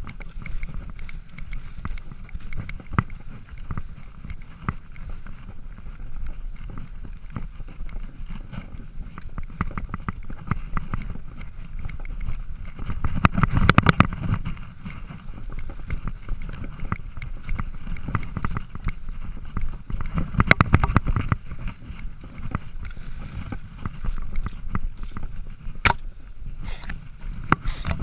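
Mountain bike riding fast over a dirt singletrack: knobby tyres rolling over the trail and the bike rattling over bumps, over a steady low wind rumble, with louder jolts about halfway through and again about three quarters of the way in.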